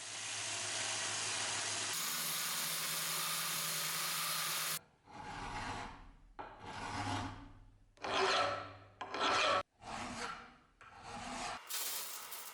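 Abrasive sanding of the steel axe head. A steady stretch of rubbing gives way, about five seconds in, to a run of separate strokes.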